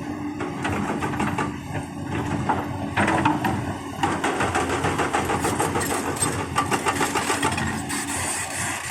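Excavator's diesel engine running under load, with a fast, even run of knocks.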